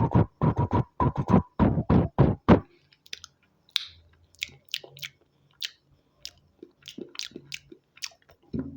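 Snake puzzle segments clicking as they are twisted: a quick run of loud knocks for the first couple of seconds, then lighter, sharper clicks every half second or so.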